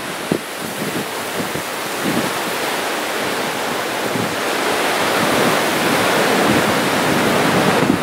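Strong Santa Ana offshore wind gusting and buffeting the microphone over the rush of surf, the noise building slowly louder toward the end.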